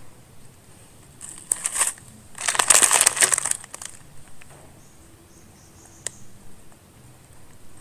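Crab shell being cracked and broken apart by hand while eating: a short burst of crackling and crunching, then a longer, louder one, and a single sharp click about six seconds in.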